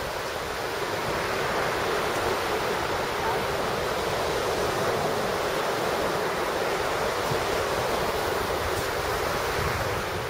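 Steady rushing noise of waves breaking on a beach, with wind buffeting the microphone.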